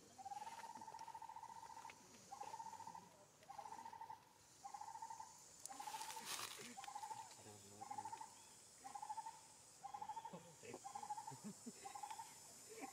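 A bird calling in the background: a long trilled note, then the same short trilled note repeated over and over at one steady pitch, about one and a half times a second.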